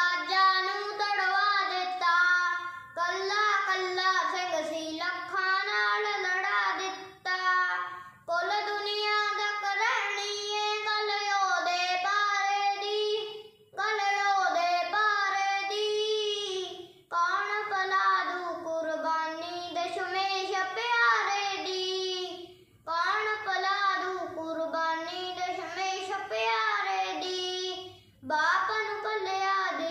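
A boy singing a Punjabi devotional song unaccompanied, in long held phrases broken by short pauses for breath.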